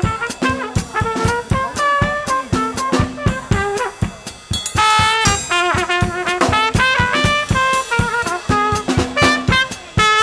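New Orleans-style brass band jazz: snare drum and cymbal strokes keep the beat under trumpet and trombone lines, with a strong brass phrase coming in about five seconds in.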